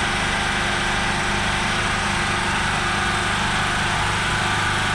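Generator engine running steadily with an even, unchanging hum.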